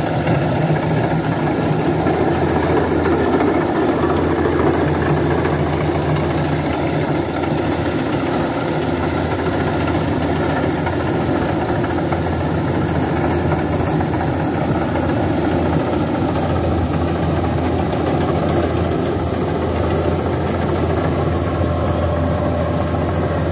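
Kubota DC-93 rice combine harvester running as it cuts and threshes standing rice, a steady low engine drone that holds even throughout.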